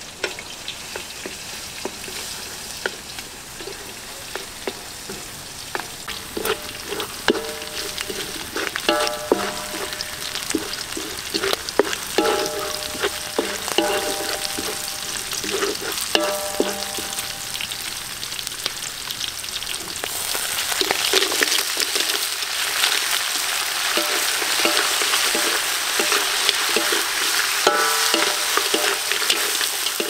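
Chillies and garlic sizzling in hot oil in a wok, stirred with a metal spatula that scrapes against the pan now and then. The sizzle grows louder about two-thirds of the way in, and by the end crabs are frying in the wok.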